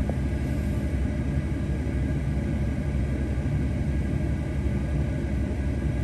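Steady road and engine rumble of a car driving, heard from inside the cabin.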